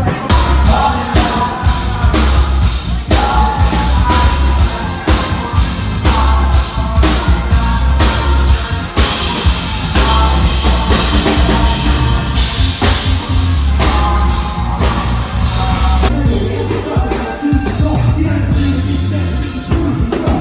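Live band music: drum kit, bass and keys with horns and sung vocals, playing a steady beat.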